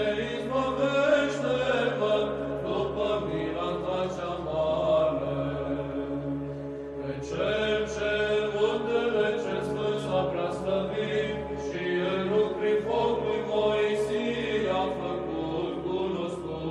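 Orthodox church chant sung in Romanian as background music: a melody moving over a steady low held drone note.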